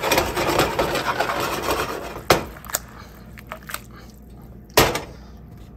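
Red wine sizzling and bubbling in a hot nonstick frying pan of mushrooms, dying down after about two seconds. Two sharp knocks, about two and a half seconds apart, come as the pan is handled.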